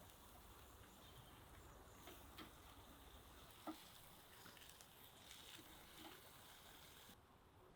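Near silence: faint outdoor background hiss with a few soft, scattered clicks, one a little more distinct about halfway through.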